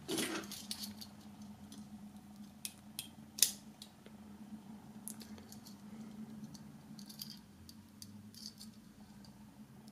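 Small metallic clicks and light jingling of a miniature keychain cap gun being handled and loaded with a red single-shot cap, with one sharper click about three and a half seconds in.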